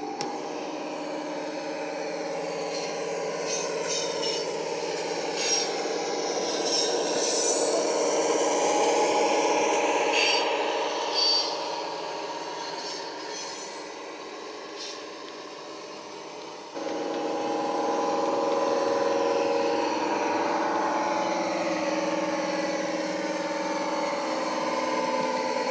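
Factory-fitted DCC sound decoder of a model Class 55 Deltic locomotive playing the Napier Deltic diesel engine sound through the model's small speaker, with little bass. In the first part the model coach wheels click and scrape on the rails as the coaches pass close. About two-thirds in, the engine sound becomes suddenly louder and stays so.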